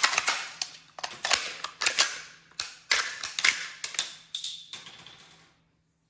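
Pistol being worked by hand in a malfunction-clearing drill: rapid metallic clicks and clacks of the slide and magazine in quick clusters, dying away about five and a half seconds in.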